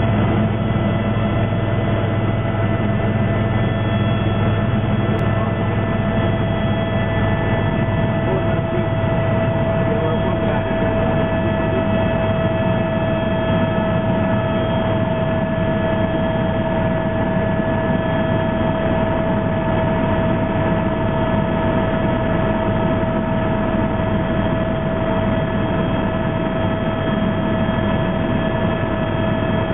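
A helicopter heard from inside its cockpit during lift-off and climb: a steady engine and rotor drone with a constant whine over it.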